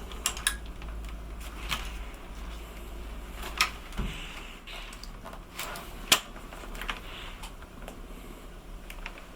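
Irregular sharp clicks and light knocks of a laptop's plastic case being handled and pried at to free its bottom cover, which is still held on.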